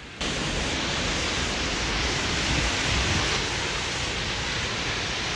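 Steady rushing roar of a nearby waterfall and its spray, setting in suddenly just after the start.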